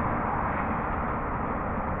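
Roadside mowing machine working on the road uphill, heard from afar as a steady mechanical rumble with a noisy hiss, a sound first mistaken for an approaching train.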